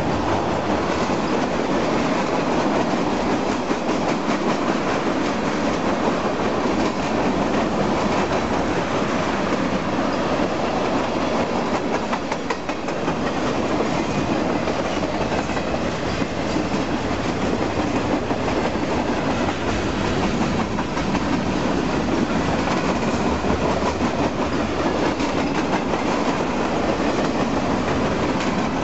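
Long freight train's cars rolling past on the main line: a steady, loud rumble and rattle of steel wheels clicking over the rail joints.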